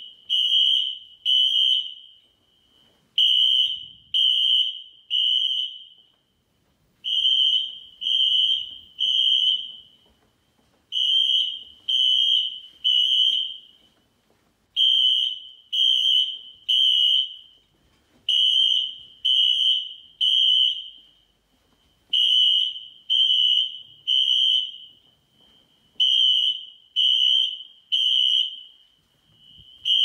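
Siemens ZH-MC-R (Wheelock ZNS) fire alarm horn/strobes sounding in temporal code-3: groups of three loud, high-pitched horn blasts, each group followed by a pause, repeating about every four seconds. This is the standard evacuation signal of the building's fire alarm system.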